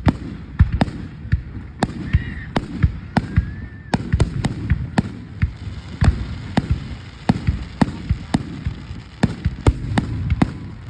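Fireworks exploding: a rapid, irregular run of sharp bangs, two to four a second, over a steady low rumble.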